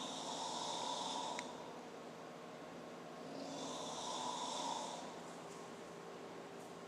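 A man snoring in slow, regular breaths: a long noisy snore at the start and another about three seconds later, roughly four seconds apart. A short click ends the first snore.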